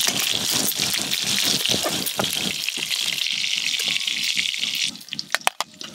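Potato and pointed gourd pieces sizzling and crackling in hot oil in a karai. The sizzle cuts off sharply about five seconds in, followed by a few sharp clicks.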